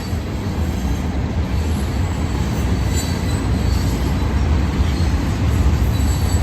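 Freight cars of a manifest train rolling past: a steady, heavy low rumble of wheels on rail, with faint high-pitched wheel squeal at moments.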